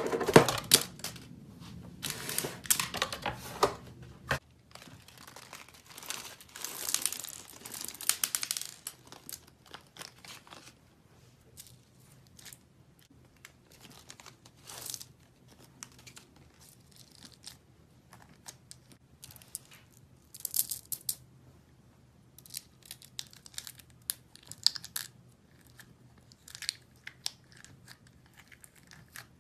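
Packaging being torn open and crinkled by hand: dense tearing and rustling for the first several seconds, then scattered crinkles and small clicks, with a few louder rustles later on.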